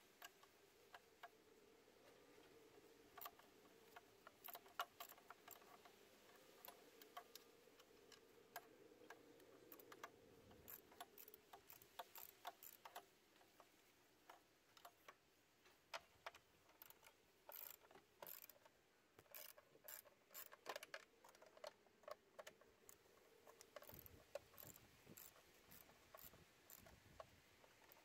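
Faint, irregular clicking of a ratchet wrench turning an 8 mm socket as the EGR tube bolts are loosened, with small metal tool clicks.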